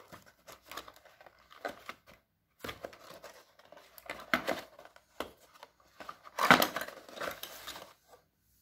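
Rigid cardboard box being handled and opened: irregular scraping and rubbing of cardboard, loudest about six and a half seconds in, stopping shortly before the end.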